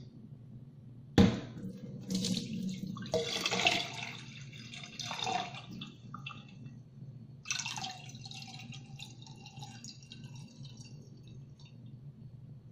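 Water sloshing, splashing and pouring as sticky rice is rinsed in a bowl and the cloudy rinse water is tipped off, in two spells. A sharp knock about a second in is the loudest sound.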